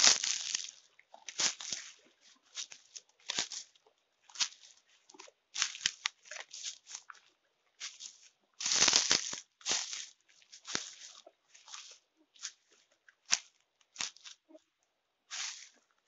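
Footsteps crunching and rustling through dry dead fern stalks and leaf litter, an uneven crackle about one to two steps a second, with a longer, louder crunch about nine seconds in.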